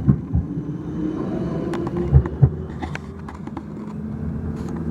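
Steady low rumble of city traffic, with a few dull thumps near the start and about two seconds in.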